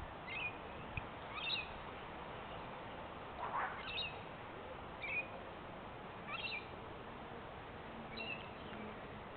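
Wild bird calling in a backyard: about six short, high calls spaced one to two seconds apart, over a steady background hiss.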